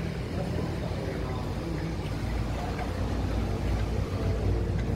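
Exhaust camshaft oil control valve solenoid on a 2013 Hyundai Elantra engine being switched by a scan tool's active test, heard as faint ticks over a steady low rumble.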